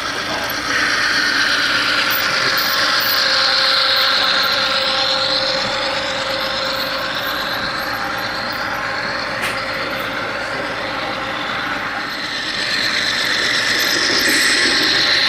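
HO scale model freight train rolling past close by: its wheels run steadily over the track and the locomotives' motors run. It grows louder about a second in as the lead CN diesel passes, and again near the end as a second locomotive in the train goes by.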